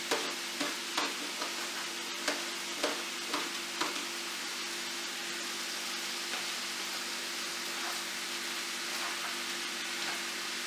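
Chicken and vegetables sizzling steadily in a hot pan on a gas burner. Over the first few seconds a spatula clicks and scrapes about twice a second as bok choy leaves are pushed off a plate into the pan. A steady low hum runs underneath.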